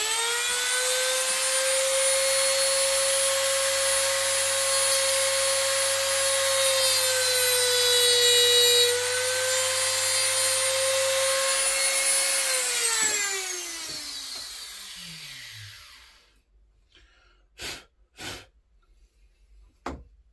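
A small high-speed electric motor spins up quickly to a steady high whine, dips slightly in pitch about eight seconds in, and after about twelve seconds winds down over three or four seconds. A few light knocks follow near the end.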